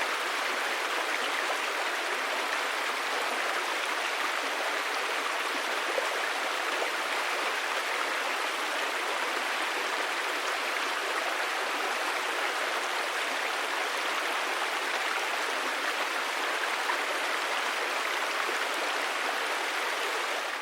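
River water flowing and burbling over stones, a steady even rush.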